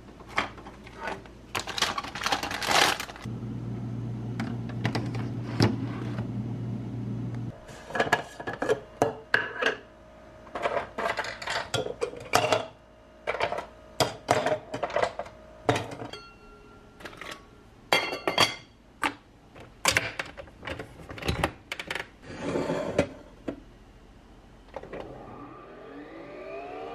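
Ice cubes clinking and knocking into a plastic tumbler amid kitchen handling clatter, after a steady low appliance hum lasting about four seconds. Near the end a Nespresso coffee machine starts up with a rising whine that settles into a steady tone.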